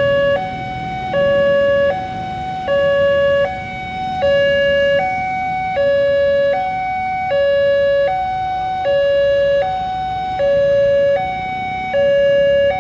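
Railway level-crossing warning alarm sounding an even two-tone pattern, the two pitches alternating a little under once a second, the lower tone louder: the crossing's alert that a train is approaching.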